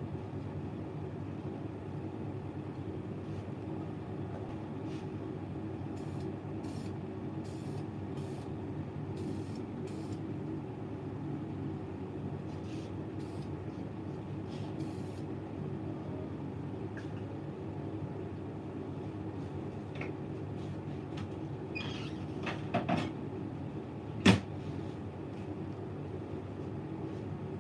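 Aerosol spray paint can sprayed in a series of short hissing bursts, coating a pistol slide, over a steady low hum. Near the end there is some clatter and then one sharp knock, the loudest sound.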